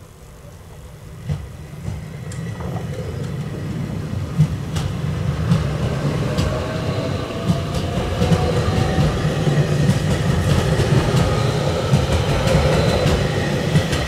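JR Hokkaido 789 series electric train pulling away from a standstill and gathering speed. A low rumble grows steadily louder, and a whine from the electric traction motors rises in pitch. Wheels click over the rail joints.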